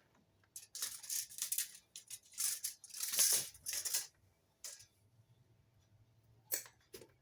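Replacement recoil starter rope being cut to length with scissors: a run of noisy cuts over about three and a half seconds, loudest near the end of the run, followed by a few light clicks.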